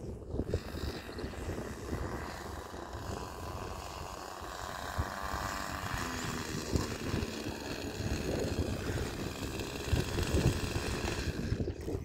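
O.S. LA .46 two-stroke glow engine of an RC model airplane in flight, a steady high-pitched buzz that drops away near the end. Wind gusts buffet the microphone underneath.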